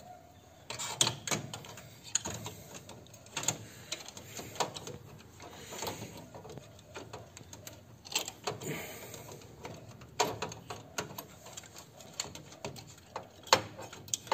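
Irregular clicks, taps and knocks of plastic and metal parts being handled and fitted as a small drive motor is remounted in a Ricoh MP 5002 copier.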